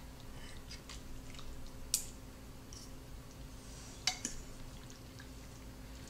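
Two metal forks shredding a slow-cooked beef roast in a crockpot's insert: faint scattered scrapes and clicks, with two sharper clinks of fork on crock about two and four seconds in.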